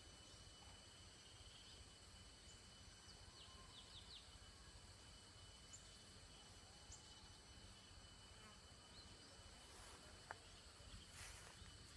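Near silence with a faint steady drone of insects, several thin high tones held throughout, and a few short high chirps about three to four seconds in and a single faint click near the end.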